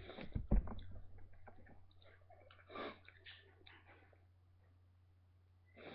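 Several low thumps and clicks close to the microphone in the first second, then a short breathy rush about three seconds in, over a steady low electrical hum.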